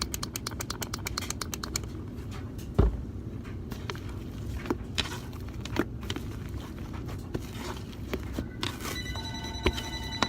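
Fluffy shaving-cream slime being kneaded and stretched with lotion: rapid sticky clicks and crackles at first, then scattered pops, with one thump about three seconds in. A steady pitched tone sounds over the last second or so.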